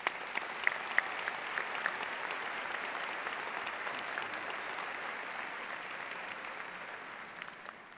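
Audience applauding, with a few single sharp claps standing out at first, then an even wash of clapping that fades away near the end.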